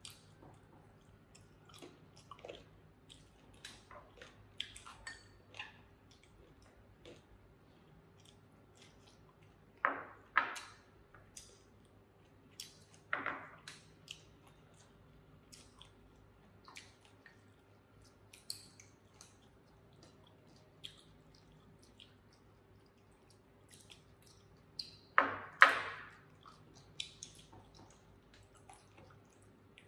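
Chewing and wet mouth sounds of people eating pork belly, with small clicks of chopsticks on plates and bowls. A few louder, sharper sounds come about ten, thirteen and twenty-five seconds in.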